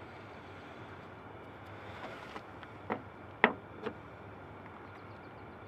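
Small parts of a portable espresso maker clicking and tapping as they are handled and set down on a tailgate: three sharp clicks close together around three seconds in, the middle one loudest, over a steady background hiss.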